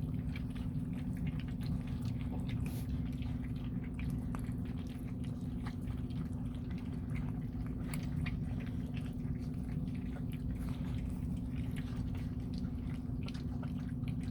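Bluetick coonhound puppies eating soft food from a dish: scattered wet smacking, lapping and chewing sounds over a steady low hum.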